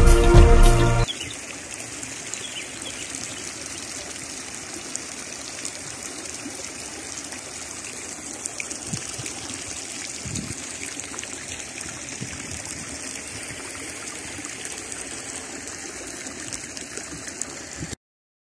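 Background music cuts off about a second in, leaving a steady trickle of running water from a garden fountain, with a couple of soft low thumps partway through.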